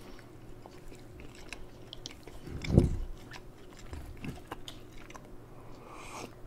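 Close-up chewing and mouth sounds of two people eating baked samsa pastries, with small wet clicks and a louder mouth sound about three seconds in.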